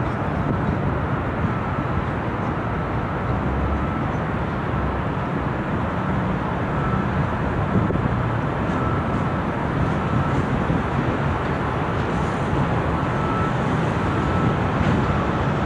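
KLW NZE15B genset switcher locomotive running steadily as it rolls slowly through the yard with a boxcar, with a faint thin whine coming and going.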